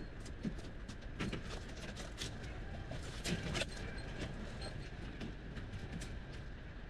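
Ford Bronco crawling slowly on a rough off-road trail: a low steady engine rumble with scattered irregular clicks and knocks, a few louder ones near the middle.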